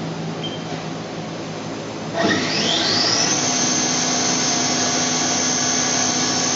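Haas VF-6 vertical machining center's spindle spinning up to 5,000 RPM about two seconds in: a rising whine that levels off into a steady high whine, over the machine's steady hum.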